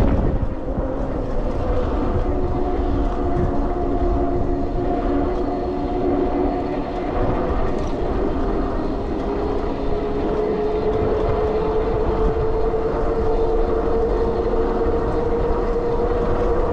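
Sondors MadMods e-bike's electric rear hub motor whining steadily under way, its pitch rising slightly in the last few seconds as speed picks up, over wind buffeting the microphone and tyre noise on pavement.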